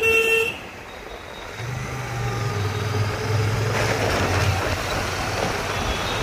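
On-board sound of a Royal Enfield Shotgun motorcycle ride: steady wind and road noise, with a low engine drone that rises about one and a half seconds in and eases off after about five seconds. A vehicle horn honks loudly for the first half-second.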